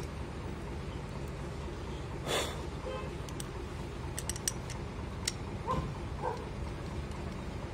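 Faint metallic clicks of the clutch lifter plate and its bolts being handled and fitted onto a Honda EX5 motorcycle clutch, over a steady low background hum. A short rushing noise comes about two seconds in, and two short pitched toots near the end.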